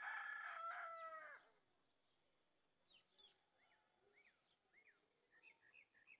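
A rooster crowing, its call ending in a falling note about a second and a half in, followed by a few faint, short bird chirps.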